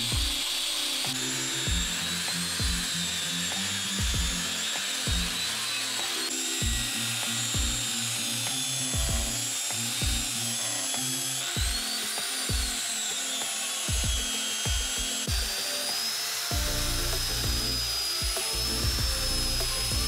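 Background music with a steady beat, over the high whine of an angle grinder sanding and polishing a steel knife blade. The grinder's pitch shifts from clip to clip and sags and recovers once near the middle.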